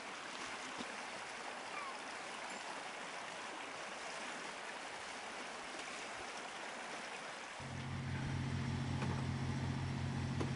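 River water rushing steadily. About three-quarters of the way through it gives way abruptly to a steady low mechanical hum, like an engine running.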